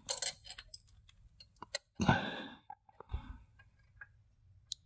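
Small metal clicks and ticks as a caliper's jaws are worked against the threads of a mini excavator's track tensioner bolt and its steel frame, with a louder short scrape or rustle about two seconds in and a smaller one just after three seconds.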